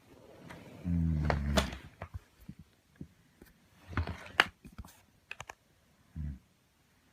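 A heavyset man snoring in his sleep: one loud, low rasping snore about a second in, then scattered sharp clicks, and a short low snort near the end.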